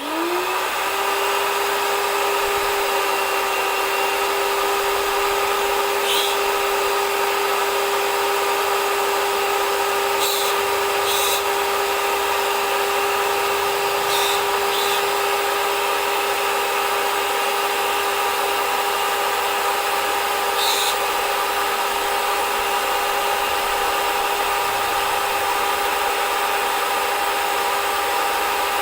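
A high-pressure jet cleaner's brushed electric motor and pump switching on, quickly coming up to speed, then running with a steady whine. A few brief clicks come through it.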